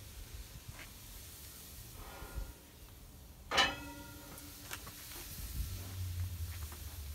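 Racks of pork ribs being laid on the hot grate of an offset smoker, with a faint hiss and one sharp metallic clank with a short ring a little past halfway. A low steady hum comes in near the end.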